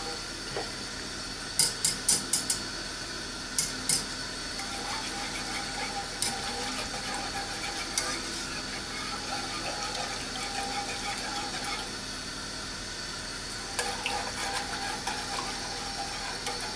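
Wire whisk stirring a cream sauce in a metal saucepan, with sharp clicks as the whisk strikes the pan's side, some in quick runs of three or four, over a steady hiss. The sauce is being whisked as it heats and thickens with gravy granules.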